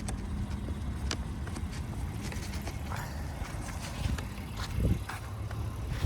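Car running with a steady low rumble, scattered faint clicks and a dull thump about five seconds in.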